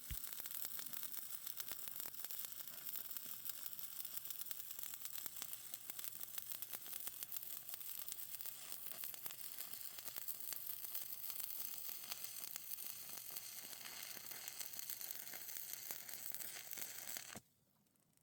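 Stick-welding arc with 7018 rods crackling steadily as beads are laid on the anvil's joint, stopping suddenly near the end.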